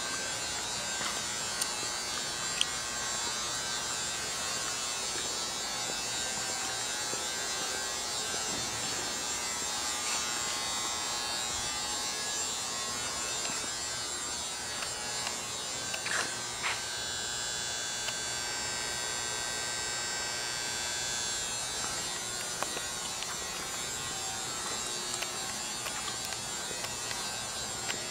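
Steady electrical buzzing hum with a hiss, with a few faint clicks; about two-thirds of the way through, a higher whine joins it for a few seconds.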